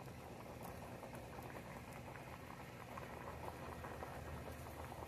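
Green beans and carrots boiling hard in a saucepan: faint, steady bubbling with many small pops.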